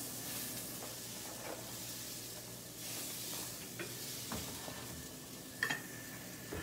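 Ground turkey patties sizzling steadily in a hot nonstick frying pan, with a few light clicks of a spatula against the pan.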